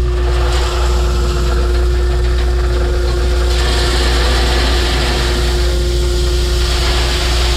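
Heavy diesel machinery engine running steadily with a low rumble and a constant hum, while a hissing, rushing noise grows louder from about halfway through.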